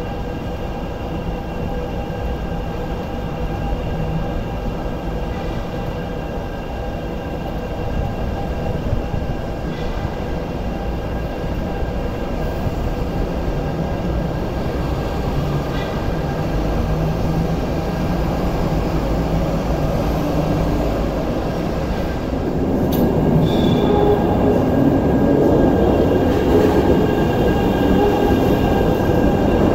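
MTR S-train (Alstom Metropolis electric train) running, its Alstom Optonix traction inverter and motors giving steady whining tones over wheel and rail noise. About two-thirds in it turns louder as a train pulls into the platform, with a brief high wheel squeal.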